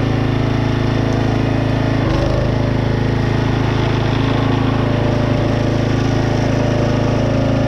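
Yard Machines log splitter's small gasoline engine running steadily, with a brief change in tone about two seconds in.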